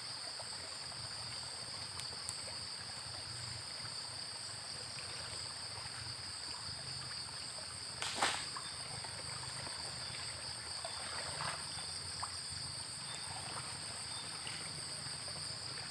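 Steady insect chorus, a continuous high-pitched chirring in two bands, with one sharp knock about eight seconds in.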